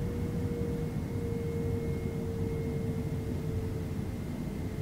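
Boeing 767 turbofan engines heard from inside the passenger cabin, running steadily: a deep rumble with a steady hum over it that drifts slightly lower in pitch.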